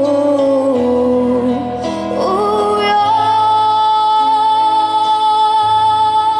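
Young female singer performing live with instrumental accompaniment, rising about two seconds in to a long held note with vibrato.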